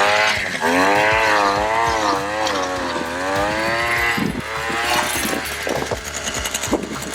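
Ice auger's small engine revving, its pitch rising and falling as it bores through the ice. It dies away about four seconds in, followed by a few scattered knocks.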